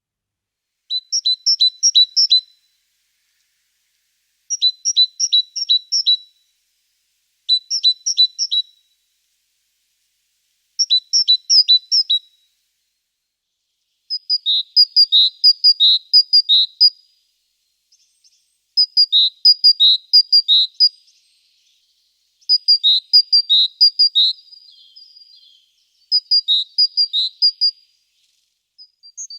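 A songbird singing short phrases of quickly repeated high notes, each phrase lasting about one and a half to three seconds, with a pause of a second or two between phrases. About halfway through, the bird switches to a different phrase pattern.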